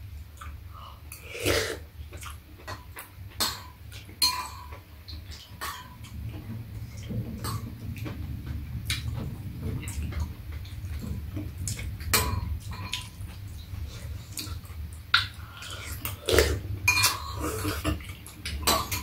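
Metal spoons and chopsticks clicking against bowls as two people eat soup and rice, with brief slurps and mouth noises, over a low steady hum.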